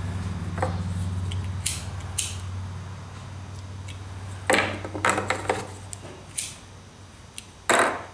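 Fine wires being handled and twisted together by hand: scattered small clicks, scrapes and rustles, a cluster of them about halfway through and one louder scrape near the end. A low steady hum underneath fades away over the first few seconds.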